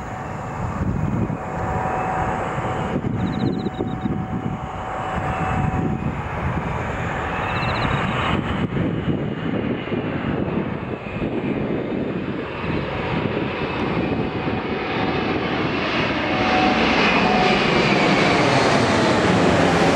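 Airbus A380-800's four Engine Alliance GP7200 turbofans on landing approach: a steady jet rumble with a high whining fan tone. It grows louder over the last few seconds as the airliner passes low overhead, with a sweeping, phasing sound.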